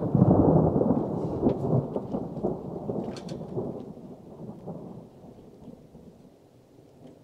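A thunderclap from a lightning strike close enough that it may have hit nearby: a loud low rumble that is loudest in the first second or two and then rolls away, fading over the next several seconds.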